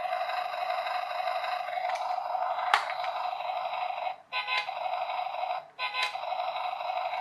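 Chad Valley RC toy car's built-in electronic sound effects playing through its small speaker: a steady, buzzy tone. There is one sharp click nearly three seconds in, and the sound cuts out briefly twice, a little after four seconds and again near six, before carrying on.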